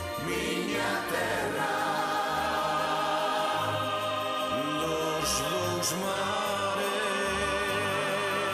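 A group of singers singing together over a live band, holding long notes with vibrato above a pulsing bass line. A couple of brief cymbal strokes come a little past the middle.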